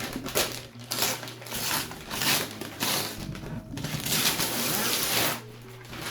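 Packaging being torn open and crumpled by hand, in loud rustling, ripping bursts, with the longest one a little past the middle. Soft background music plays underneath.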